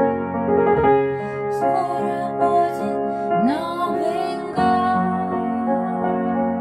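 Upright piano being played, chords and melody notes ringing and overlapping. About halfway through, a short voice-like glide rises and falls over the piano.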